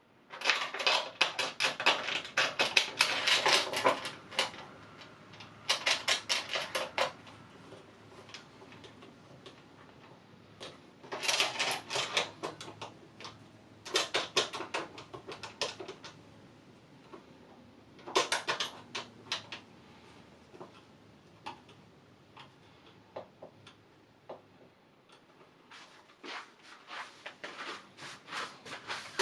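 Rapid mechanical clicking in several bursts of quick ticks, the longest lasting about three seconds, with quieter pauses between.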